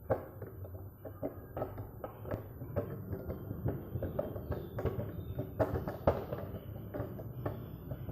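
Homemade hand-pedalled tricycle rolling over a tiled floor: a steady low rumble with irregular clacks and knocks from its metal frame and wheels, a few each second.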